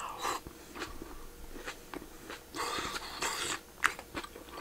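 A person eating: chewing a mouthful of rice and simmered mackerel and daikon, in short bursts, with a few light clicks from chopsticks and bowl.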